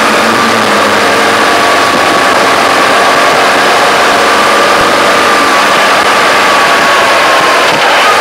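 Motorcycle engine running steadily under way, with dense road and wind noise over it and a steady high whine that sags slightly in pitch and then recovers.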